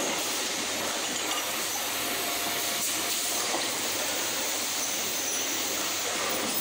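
Steady mechanical din of an automated gas spring assembly line running, with a constant hiss.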